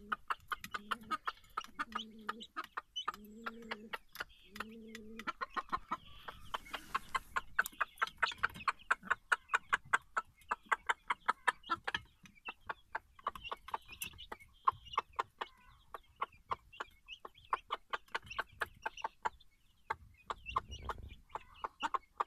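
Araucana chicks pecking feed from a dish: a rapid run of sharp pecking clicks, several a second, with short chirps. A hen gives four low clucks in the first five seconds.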